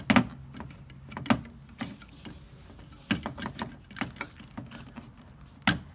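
Plastic clicks and knocks as a cord piece is pushed and snapped into a portable air conditioner's plastic window slide panel, with the sharpest click near the end.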